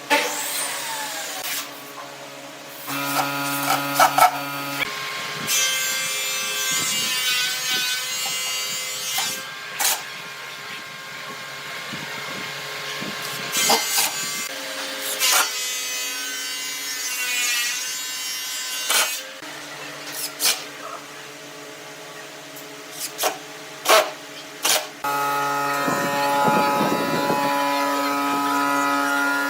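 Power tools working wood: electric motors start and stop several times with a steady whine, along with sharp knocks and clicks.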